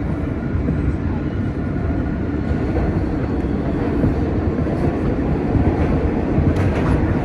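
Ride noise inside a 2007 Kawasaki R160B subway car running at speed: a steady low rumble of wheels on rail that grows slightly louder toward the end, where clicks of the wheels over rail joints begin.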